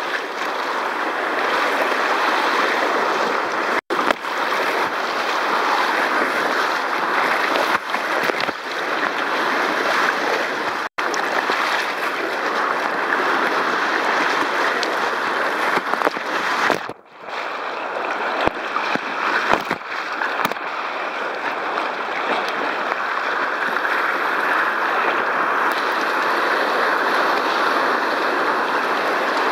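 Whitewater rapids rushing and splashing close around a kayak running them. The sound cuts out briefly twice and dips once past the middle.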